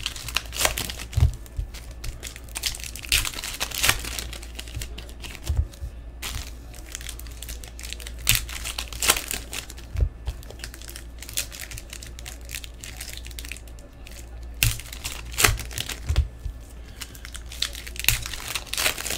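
Foil wrappers of Topps Series 1 trading-card packs being torn open and crinkled by hand, with cards handled in between: irregular crackling and rustling over a steady low hum.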